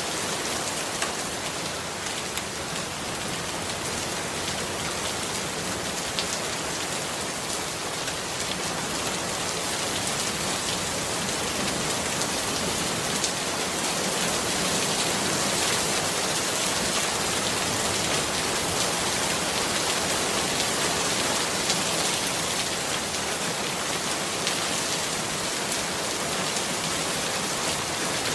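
Steady rain falling on puddles and leaves: a dense, even hiss with individual drops splashing through it.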